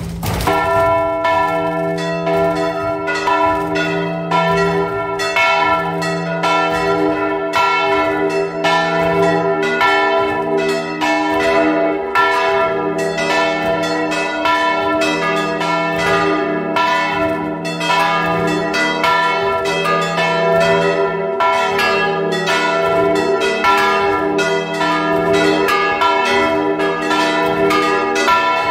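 The church's bronze bells, cast by the Pasqualini foundry in 1939, swinging and ringing together, heard close up from inside the bell chamber. The clappers strike in a steady stream of overlapping strokes, each leaving a long ringing tone.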